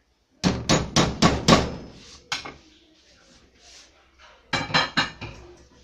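A cooking utensil knocked sharply against a pot and plate: a quick run of about five strikes, one more a moment later, then three more near the end.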